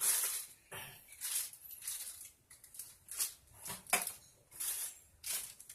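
Irregular rustles and small clicks of paper and plastic packaging and accessories being handled as they are taken out of a box.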